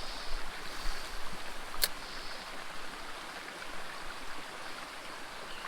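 Small mountain stream running, a steady rush of water. A single sharp click sounds a little under two seconds in.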